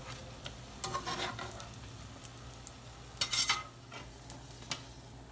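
Chickpea turnovers sizzling in hot vegetable oil while a slotted metal spatula lifts them out, scraping and clicking against the pan and a wire rack, with a louder clatter about three seconds in.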